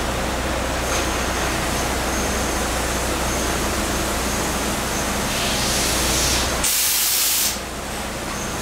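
CNC machining centre running with flood coolant spraying onto an aluminium cylinder head as a 3/8 UNC tap threads the bolt holes: a steady hiss over a low machine hum. The hiss briefly grows louder about seven seconds in, then drops back.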